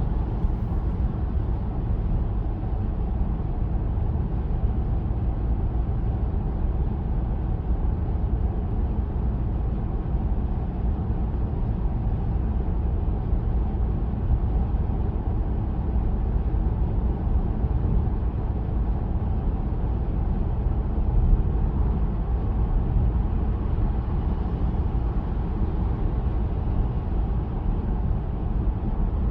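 Steady low rumble of road, tyre and engine noise inside the cabin of a moving Peugeot 408 1.2 PureTech 130.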